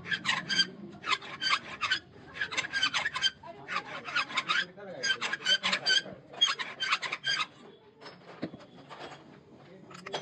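Hand-turned valve seat cutter scraping a valve seat in a Comet engine cylinder head: repeated bursts of quick, ringing metal-on-metal scrapes, about one burst every second and a half, as the T-handle is twisted back and forth. The bursts stop about three-quarters of the way through, leaving only faint scraping.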